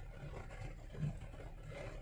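Vehicle engine running and the body rattling as it drives slowly over a rough dirt track, heard from inside the cab, with a single thump about a second in.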